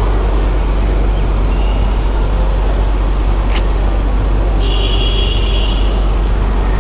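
Steady, loud outdoor background noise: a constant low rumble with hiss over it. There is a single click about three and a half seconds in, and a brief high tone near five seconds.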